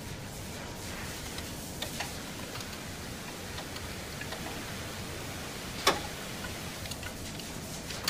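Light metallic clicks and taps of hand tools and fittings on a screw air compressor's oil separator tank being reassembled, with one sharp click about six seconds in, over a steady hiss.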